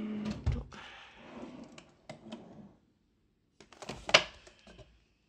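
A wooden desk drawer being pulled open with a low thud, followed by light clattering and clicks as things inside it are handled, with one sharp loud click near the end.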